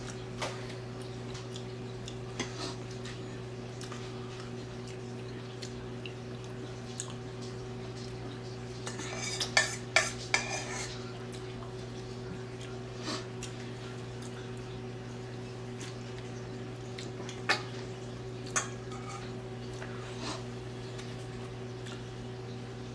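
Kitchen dishes and utensils clinking now and then, loudest in a short cluster of knocks with a brief metallic ring near the middle, over a steady low hum.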